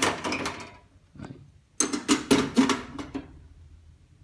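A man's voice speaking in two short stretches, with a faint tick in the pause between them.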